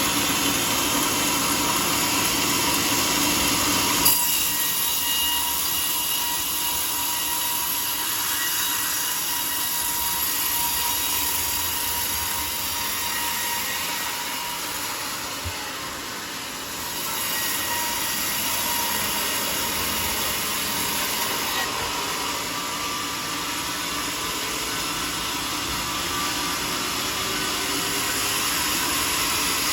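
Sawmill saw cutting through a teak log, a steady noisy whir, with a single sharp knock about four seconds in.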